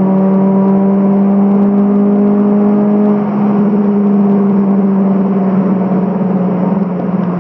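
Turbocharged Honda H22 four-cylinder in a Civic running at high revs at highway speed, heard from inside the car as one steady drone. About three seconds in the sound grows duller and its pitch slowly sags.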